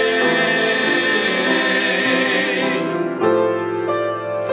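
Gospel choir singing with piano, holding a long chord on the word "away" that ends about three seconds in, then a piano chord.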